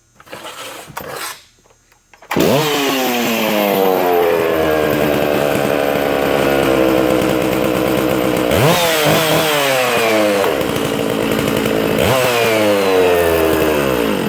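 Stihl MS 660 Magnum two-stroke chainsaw with its factory dual-port muffler, starting about two seconds in and running loud. It is revved three times, each rev jumping up sharply in pitch and sliding slowly back down.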